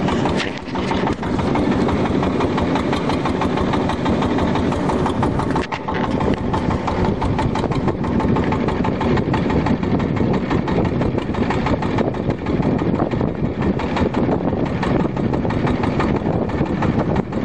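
A river boat's engine running steadily and loud, with its fast, even firing beat, dipping briefly about a second in and again near six seconds.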